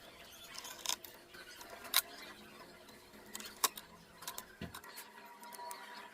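A few faint, short clicks and taps, about four spread over several seconds, over low background noise.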